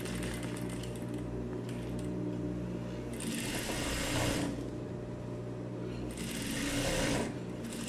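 Sewing machine running steadily, stitching a topstitch seam through denim. There are two louder, hissier stretches, about three and six seconds in.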